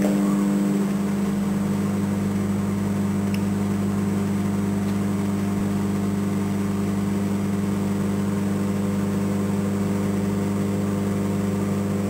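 Toshiba microwave oven running a 20-second heating cycle, a steady electrical hum with a deeper hum joining about a second in.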